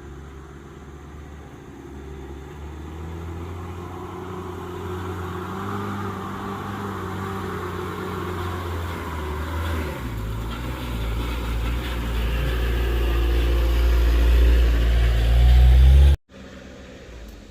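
A heavy road vehicle's engine pulling up a steep climb, growing steadily louder as it approaches. About ten seconds in the engine note drops lower and grows heavier. Near the end the sound cuts off abruptly.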